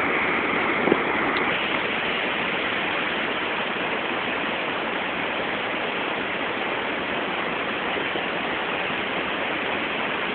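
Steady rush of white water tumbling over rocks, with a brief bump about a second in.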